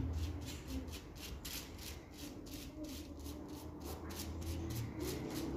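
Tint brush stroking bleach paste onto hair strands lying over a plastic bag cap: a quick, even series of soft swishes, about three a second, over a low steady hum.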